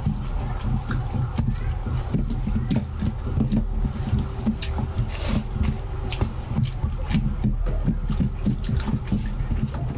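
Wet eating sounds of two people eating rice, rajma and curry with their hands: squelching as fingers mix rice into the gravy, with chewing and lip-smacking in a quick, irregular run of smacks.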